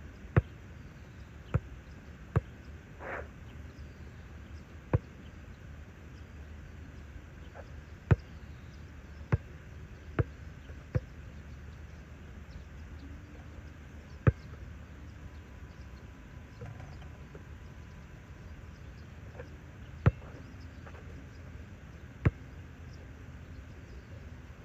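A basketball bouncing and striking the court, heard as about a dozen sharp, separate thuds at irregular intervals, some bunched close together and others with long gaps between them. A steady low outdoor background runs underneath.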